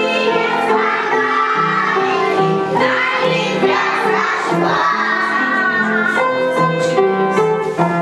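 Music: a song sung by children's voices, with steady held notes.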